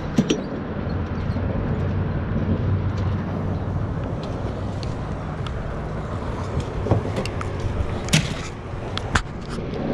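Steady low rumble of wind on the microphone, with a few sharp knocks and clatters from a plastic cooler being handled as a fish is laid in it. The loudest knocks come about eight and nine seconds in.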